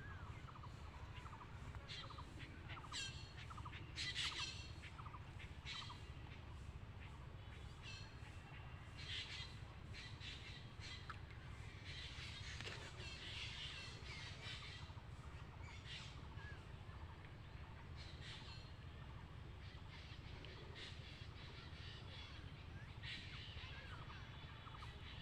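Birds calling outdoors in many short, scattered calls, some of them harsh, over a low steady rumble.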